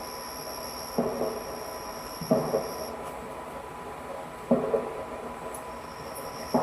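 Body-camera recording with a steady electronic hiss and a thin steady tone, broken by four short muffled thumps spaced one to two seconds apart.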